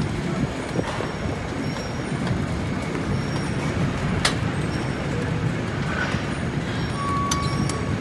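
Swift Lift 900 mm double conveyors and Extendo elevator running loaded with bulk potatoes: a steady rumble of potatoes tumbling along the belts and dropping into a tipper trailer, with one sharp knock about four seconds in. A steady high tone comes in near the end.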